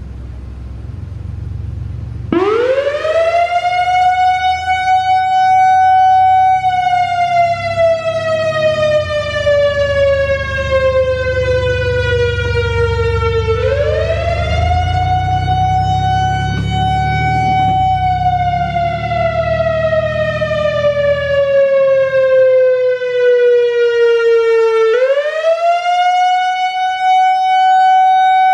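Whelen WPS-3000 electronic outdoor warning siren sounding its Wail signal. About two seconds in, the tone rises quickly, holds, then slowly falls, and it rises again twice, about every eleven seconds.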